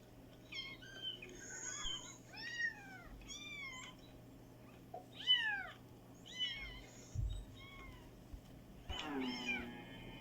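Cat mewing: a run of short, high mews that rise and fall in pitch, then a longer, lower meow about nine seconds in.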